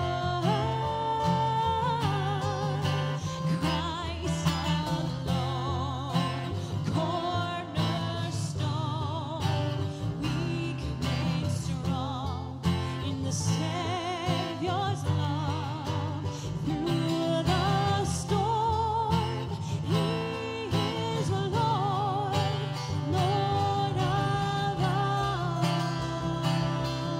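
Acoustic worship band playing a song live: a woman singing with vibrato over strummed acoustic guitars and an upright double bass.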